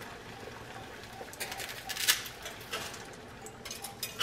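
Dry whole wheat spaghetti snapping and clicking as a bundle is pushed into a steel pot: a few short, sharp clicks, the sharpest about two seconds in.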